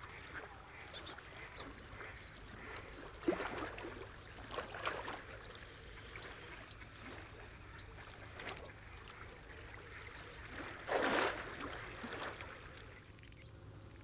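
Mallards on the water: faint splashing as a drake bathes, with a few short, soft duck calls. The loudest is a brief burst about eleven seconds in.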